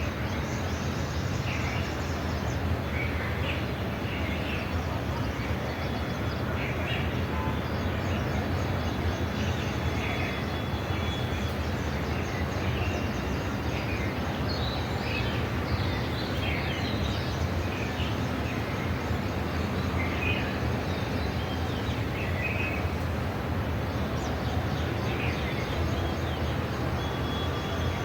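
Short bird chirps repeating every second or two over a steady low rumble of background noise.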